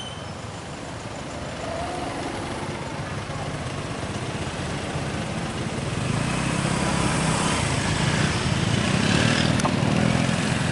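A motor vehicle's engine approaching along a road, growing steadily louder to a peak near the end.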